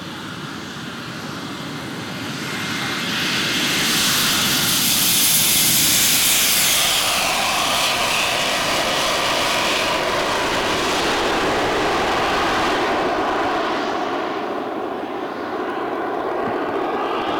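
Twin JetCat P120 model jet turbines of a large RC BAe 146 model at takeoff power. The roar builds as the model runs down the strip and lifts off, and is loudest with a high rushing hiss about four to seven seconds in as it passes. It then carries on as a steady roar while the model climbs away.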